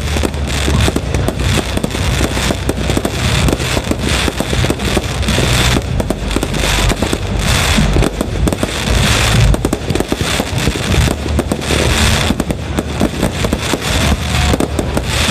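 Aerial firework shells bursting at close range in a dense, unbroken barrage of bangs mixed with crackling stars.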